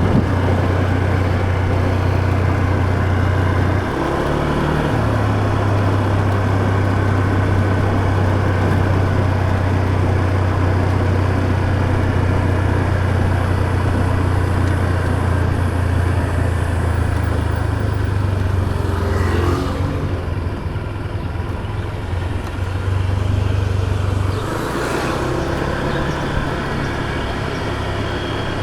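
Motor scooter engine running steadily under way, with wind and road noise. The engine note shifts about four seconds in and again near the end.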